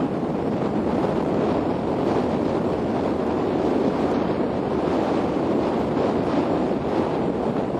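Steady rushing wind noise on the microphone, dense and unbroken.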